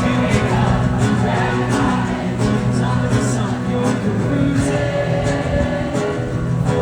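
Live rock band playing a song through a PA: guitar and drums with a singing voice.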